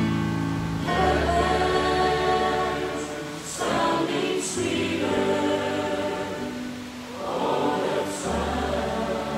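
A hymn sung slowly in long held phrases, with steady low accompaniment underneath.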